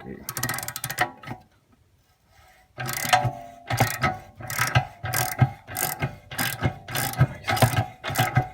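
Socket ratchet wrench clicking as it is swung back and forth, loosening a brake caliper bolt. A short run of quick clicks, a pause, then steady strokes of clicks at about two a second.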